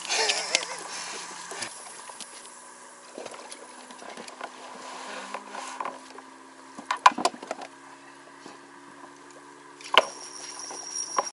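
Scattered clicks and knocks of fishing tackle being handled in an inflatable boat: a quick cluster about seven seconds in and one sharp knock at about ten seconds, over a faint steady hum.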